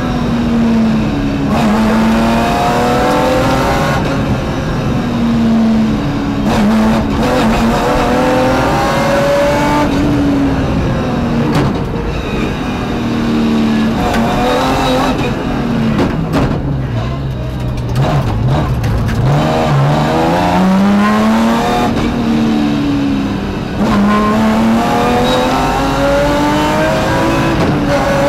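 BMW rally car's engine heard from inside the cabin at stage pace, revving up through the gears with quick upshifts that each drop the pitch sharply. About two-thirds in the revs fall low, then it pulls up through the gears again.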